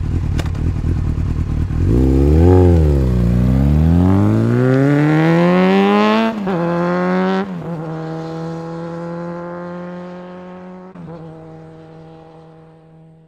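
Motorcycle engine blipped once, then revving up in a long rising pull and shifting up, the pitch dropping at each gear change. It then holds a steady speed while fading away.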